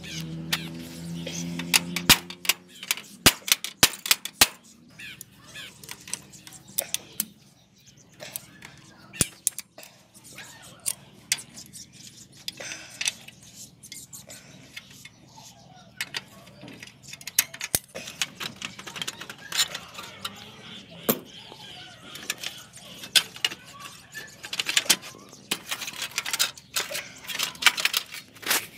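Hand tools, locking pliers among them, clinking and knocking against the rusty rear hub and frame of an old bicycle: irregular sharp metallic clicks, thickest near the end.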